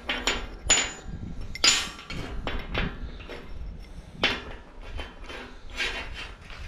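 Steel chain sprocket and shaft being handled on a steel-plate work table: a series of separate metal clanks and knocks, some with a brief ring.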